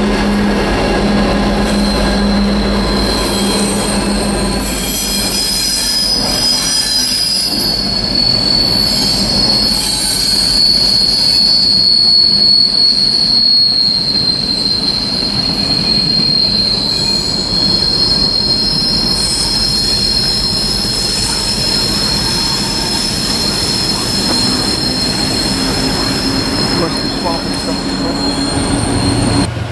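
A set of Norfolk Southern SD40E diesel locomotives running past, engines rumbling. From about five seconds in, their wheels give a loud, high, steady squeal that sinks slightly in pitch and lasts until near the end as the last unit goes by.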